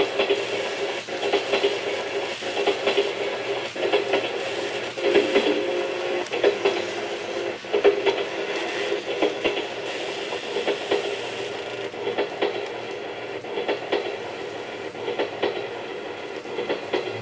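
Train running sound of a JNR 101 series electric train played by a TOMYTEC N-scale sound control unit: a steady hum with scattered sharp clicks.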